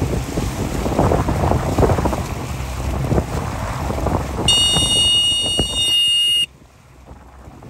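Wind buffeting the microphone over splashing, choppy water while moving across open water. About four and a half seconds in, a steady high-pitched tone sounds for about two seconds. Then the wind noise cuts off suddenly, leaving a faint, much quieter rush.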